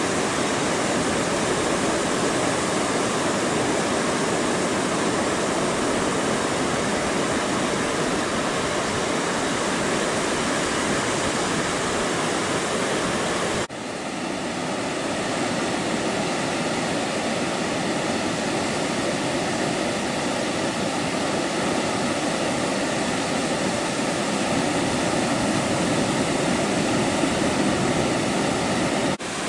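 Steady roar of ocean surf breaking, with a brief dropout about halfway through and again near the end.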